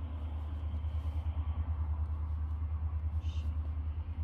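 A steady low rumble, pulsing evenly about five times a second, with a brief faint high blip about three seconds in.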